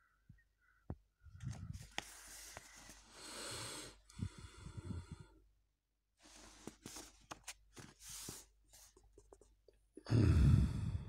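Paper rustling and fingers rubbing over the pages of a comic book held close to the microphone, with small clicks and scrapes, then a louder rustle about ten seconds in as a page is turned.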